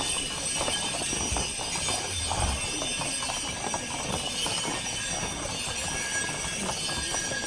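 Several ridden horses walking on an asphalt street, their hooves clip-clopping in an irregular overlapping patter, over a steady background hiss.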